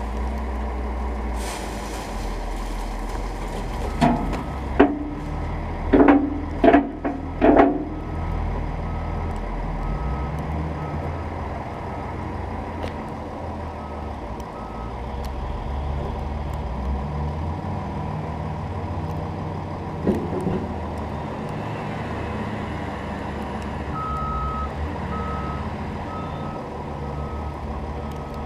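Heavy plow-and-sander dump truck's engine running as it backs up slowly, its backup alarm beeping on and off. About four seconds in comes a run of five or six loud bangs, and one more follows near twenty seconds.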